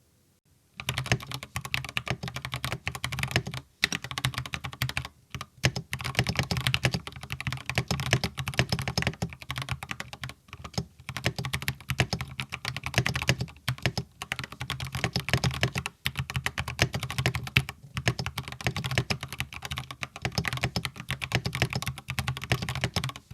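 Fast continuous typing on a mechanical keyboard with Gateron Yellow V3 linear switches, a dense run of key clacks with brief pauses, starting about a second in.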